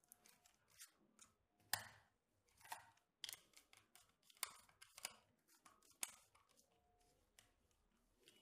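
Faint, irregular clicks and scrapes of a small screwdriver turning a contactor's auxiliary-contact terminal screw, clamping a control wire into it.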